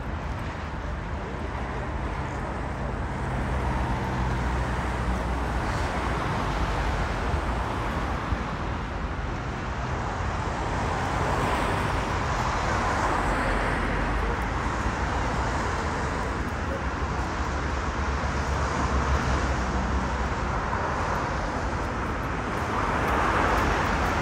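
Busy city-street traffic noise: a steady wash of passing cars with a low engine rumble.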